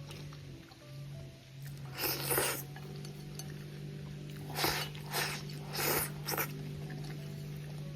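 Someone eating a meal of stir-fried bamboo shoots and pork: several short bursts of crunchy chewing and chopsticks clinking a bowl, over a steady low hum.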